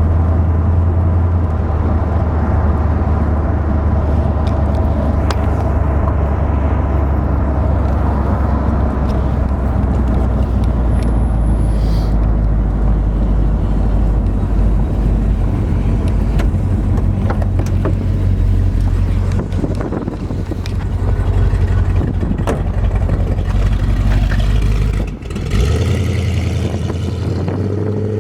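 A 1969 Chevrolet Corvette's 350 cubic-inch V8 under way with an automatic transmission, a steady low engine and road rumble heard from inside the car. The rumble dips briefly about 25 seconds in, then picks up again with a rising tone near the end.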